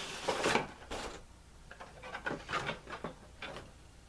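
Handling noises: a run of short scraping and rubbing sounds, like objects or packaging being moved and slid across a surface.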